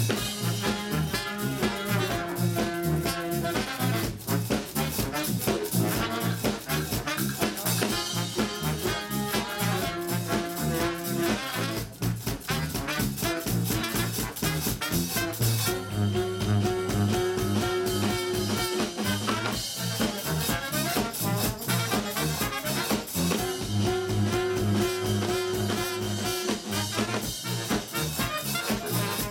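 Live brass band playing an instrumental number: trumpet, alto and baritone saxophones, trombone and sousaphone over drum kit and congas, with a steady beat and held horn notes.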